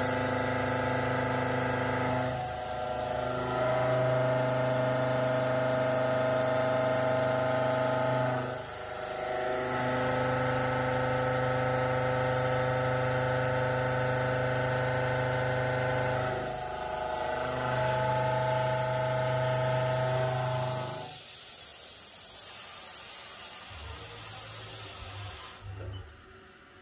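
Dapra DSS 2-inch shoulder-milling cutter on a long-reach extension, spinning at about 1530 RPM and ramping continuously through 4140 pre-hardened steel: a steady hum of several held pitches that dips briefly three times. About 21 seconds in the cutting stops, leaving a hiss and a faint low hum until the sound drops away near the end.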